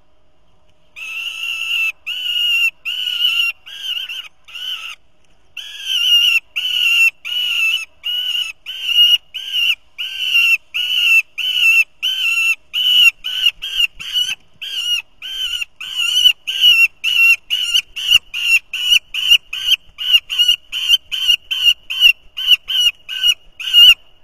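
Juvenile peregrine falcon calling over and over with a harsh, insistent cry, about one call a second at first, then after a short pause quickening to about two a second and getting louder. It is a young falcon worked up in a frenzy of play-hunting on the nest.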